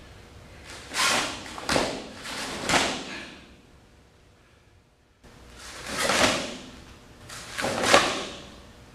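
Karate gi snapping and swishing with the sharp strikes and blocks of a kata, in five short bursts. There is a pause of about two seconds in the middle.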